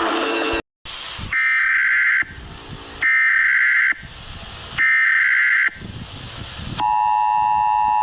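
Guitar music cuts off abruptly, and after a moment of static come three loud bursts of Emergency Alert System data header tones (the screechy SAME code), each just under a second long, with hiss between them. About seven seconds in, the steady two-tone EAS attention signal begins.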